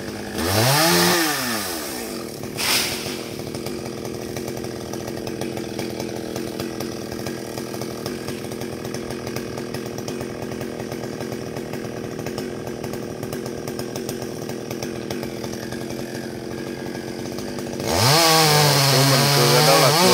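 Gas chainsaw idling steadily, revved briefly about half a second in and again near three seconds, then opened up to full throttle near the end as it cuts into the trunk.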